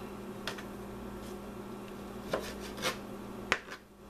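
Kitchen knife cutting raw beef roast into cubes on a plastic cutting board: the blade rubs through the meat, with about five separate knocks as it meets the board, over a steady low hum.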